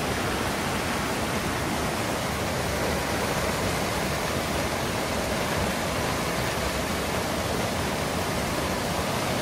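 Muddy floodwater rushing fast through a concrete river channel, a river in flood that has nearly overflowed its banks: a steady, unbroken rush of water.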